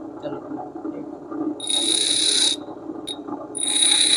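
Pedestal grinder running with a steady hum while a steel lathe tool bit is pressed against the spinning abrasive wheel, shaping the tool's cutting angle. There are two passes, each a loud, high-pitched grinding hiss: one about a second and a half in that lasts about a second, and another from about three and a half seconds in that runs on.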